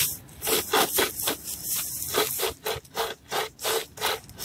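Pocket chainsaw, a toothed chain pulled back and forth by its two handles, rasping through a thin branch in even strokes, about three a second.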